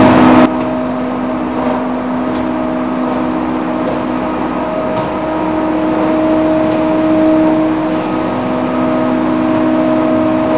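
Machinery of a hemp processing plant running steadily, a loud hum with several steady tones over a rushing noise. It drops sharply in level about half a second in, then carries on evenly.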